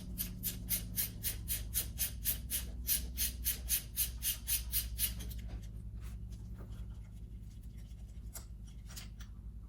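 Socket ratchet clicking in a steady rhythm of about four to five clicks a second as a spark plug is backed out of the second cylinder. The clicking stops about five seconds in, leaving a few scattered light ticks.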